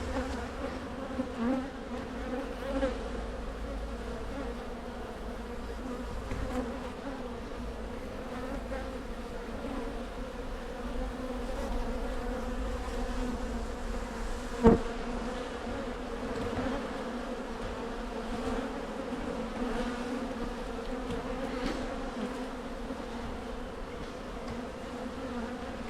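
Honey bees of an opened hive buzzing, a steady hum with no break. About fifteen seconds in there is a single sharp click.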